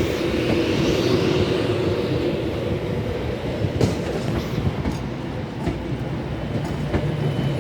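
Passenger train moving through a station, its running hum fading over the first couple of seconds, with scattered sharp clicks of wheels over rail joints.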